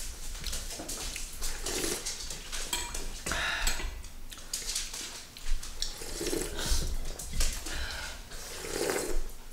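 Two people eating a meal: a ceramic soup spoon clinking and scraping in bowls and plates, with small clicks of dishes and the wet sounds of chewing and sipping from the spoon.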